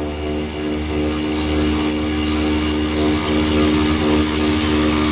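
CNC foam router running steadily, its spindle driving a long bit through a foam block: a steady machine whine with a strong steady tone over a low hum and hiss.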